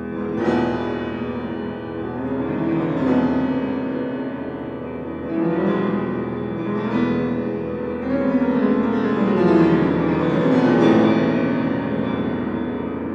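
Solo piano playing an ominous bass tremolo on the dominant, with short chromatic runs sweeping up and down the keyboard in repeated swells, a stock musical imitation of wind.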